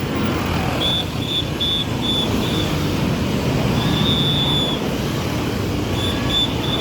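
Road traffic with bus engines running, and over it a high, thin tone sounding in quick short pips, about three a second, held once for about a second near the middle.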